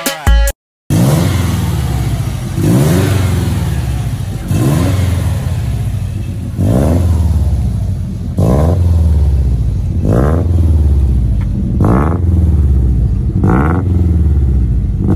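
Subaru Impreza WRX turbocharged flat-four with a GT30 turbo, free-revving while parked: about eight quick blips of the throttle, roughly one every two seconds, each rising in pitch and falling back to idle.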